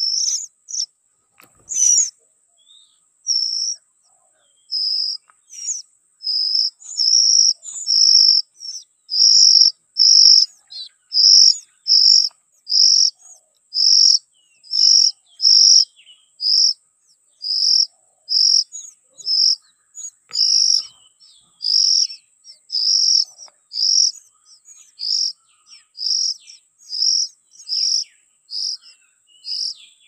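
Oriental magpie-robin nestlings begging at the nest: short, high, evenly spaced calls. They are sparse at first and come about one and a half a second after the first few seconds. A faint steady high tone runs underneath.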